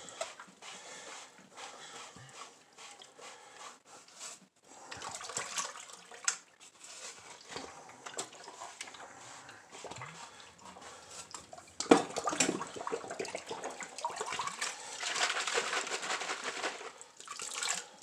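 A bottle brush scrubbing inside a plastic humidifier water tank held under water in a sink, with water sloshing and splashing; the scrubbing and splashing get busier and louder in the second half.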